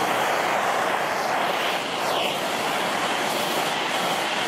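Handheld gas torch burning with a steady rushing hiss as its flame is swept across weathered wood, scorching the pale top boards darker.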